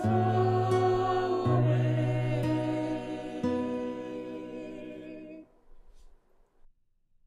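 Slow Taizé-style chant with long held notes and chord changes, ending on a sustained final chord that dies away about five and a half seconds in.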